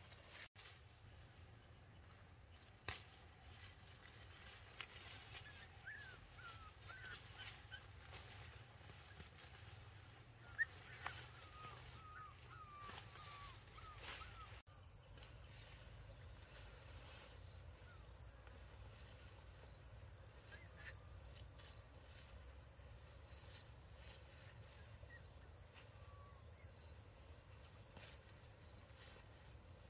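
Faint countryside ambience: crickets and other insects trilling steadily at a high pitch, with short repeated chirps through the second half. A few small squeaky calls come in the first half, along with a couple of sharp clicks.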